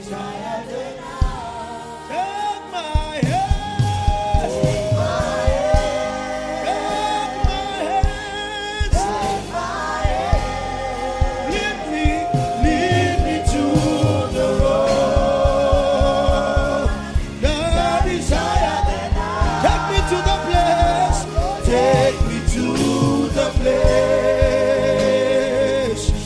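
Gospel worship song: a voice sings a slow, held melody with vibrato over musical accompaniment. A regular beat comes in about three seconds in.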